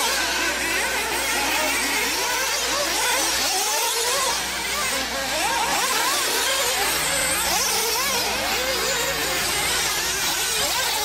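Several radio-controlled 4x4 off-road buggies' small nitro engines racing at once, each revving up and down on and off the throttle, so their high pitches swoop and overlap.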